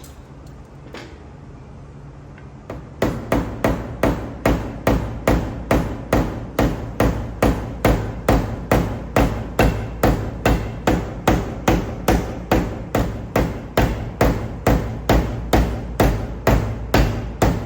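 A small hammer tapping steadily on a car's sheet-metal body panel, about two and a half taps a second, starting about three seconds in: paintless dent repair, working the metal down while the panel is under tension. A low steady hum sits underneath.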